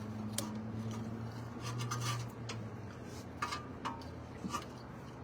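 Caliper piston compression tool being cranked against a dual-piston brake caliper: irregular metallic clicks and rubbing as the piston is pushed back into its bore. A low steady hum runs under the first two seconds or so.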